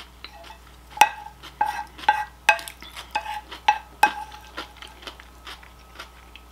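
A wooden spoon and a fork clinking and scraping on a ceramic plate as salad is gathered and scooped up. There is a series of sharp clinks, about two a second, each leaving a brief ring from the plate, with the loudest about a second in and fainter ones toward the end.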